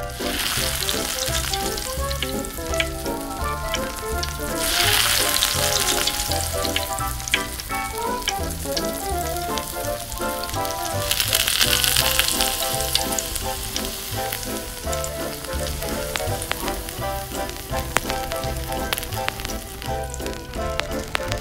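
Butter and small patties sizzling as they fry in a tiny metal pan, the sizzle swelling about five seconds in and again around eleven seconds. Background music with a steady beat plays underneath.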